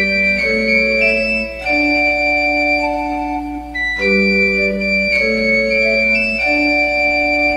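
Instrumental interlude of a children's nursery-rhyme song, played on an organ-like electronic keyboard as held chords that change about every second.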